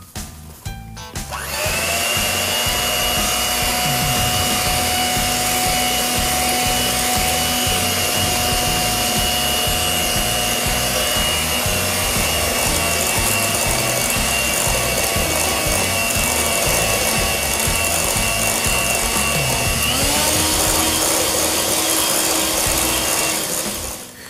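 Electric hand mixer running steadily, its beaters whisking cake batter as flour is added. It starts about a second and a half in, and its whine changes pitch near the end.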